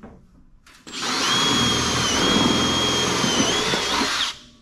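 Cordless drill driving a sheet metal screw into car-body sheet metal. It starts about a second in, its motor whines steadily for about three seconds, the pitch sags slightly near the end, and then it stops.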